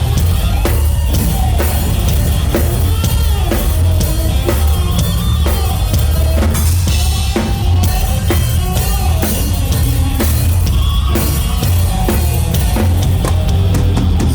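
Rock band playing live at full volume: a drum kit pounds out a fast, dense pattern of kick and snare hits over bass and guitars.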